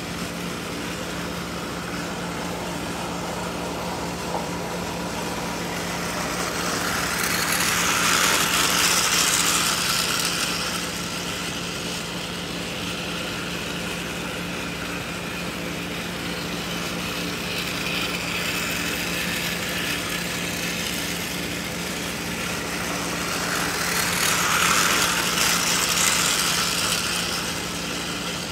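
Battery-powered Thomas & Friends toy engines Rosie and Nia running around plastic track, their small motors and gears making a steady whir. The whir grows louder twice, about 8 to 10 seconds in and again about 24 to 26 seconds in, as an engine comes close by on each lap.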